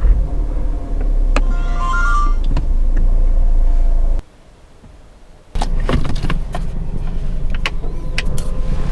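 Car running, a steady low rumble of engine and road noise heard from inside the car, with scattered clicks and a few short stepped tones. It drops out for about a second midway, then comes back.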